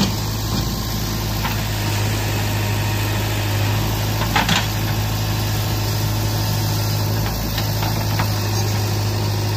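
JCB 3DX backhoe loader's diesel engine running steadily while the backhoe arm digs into a mound of soil, with a few short knocks, the loudest about four and a half seconds in.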